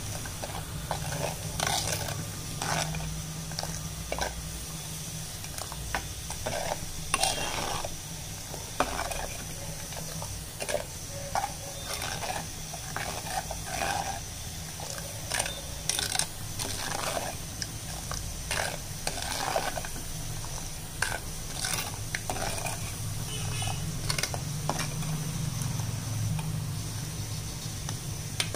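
Steel ladle stirring a thick fish curry gravy in a clay pot, with irregular clinks and scrapes against the pot's side, over a steady low hum.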